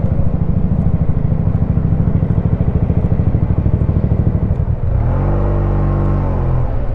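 An engine idling close by with a fast, even pulse. About five seconds in, a second engine with a steady low pitch rises over it for about a second and a half, then fades.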